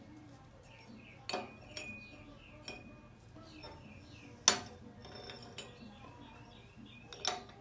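Steel tubes clinking against each other and against a steel base plate as they are stood upright on a steel bench: four sharp metal knocks, the loudest a little past halfway.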